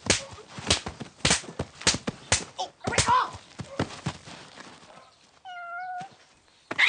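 A run of sharp knocks or smacks, roughly every half second, then a single pitched call lasting under a second near the end.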